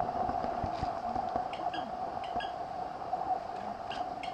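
A steady hum, with a few short, faint high chirps about one and a half, two and a half and four seconds in.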